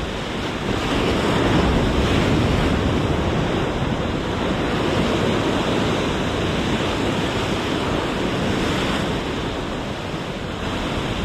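Ocean surf surging and breaking against the rocks of a jetty, with wind on the microphone. It swells louder about a second in, then eases slowly.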